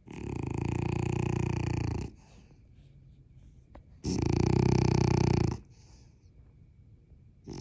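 Snoring: two long drawn-out snores, each about two seconds with a fast flutter, about four seconds apart, and a third beginning right at the end.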